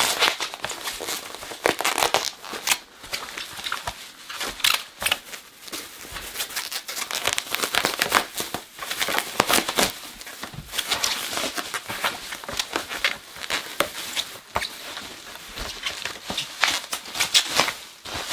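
Bubble wrap being pulled apart and unwrapped by hand, crinkling and rustling irregularly, with tape being peeled off it.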